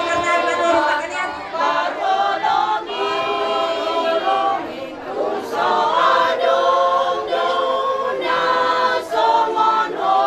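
A group of people singing together, with long held notes moving from phrase to phrase.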